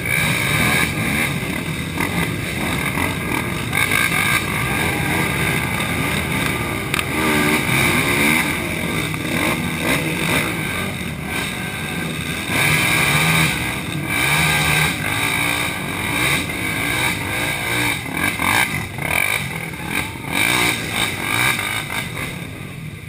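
Racing quad (ATV) engines running and revving unevenly as the quads power through deep mud, the pitch rising and falling with the throttle.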